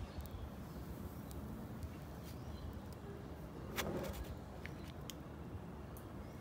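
A spoon cutting through soft sponge cake and tapping against the plate: a few faint clicks, the loudest nearly four seconds in.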